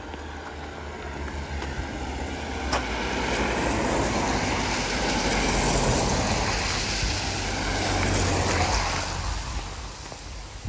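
A car drives past on a wet, slushy road, its tyre hiss swelling as it approaches and fading after it passes.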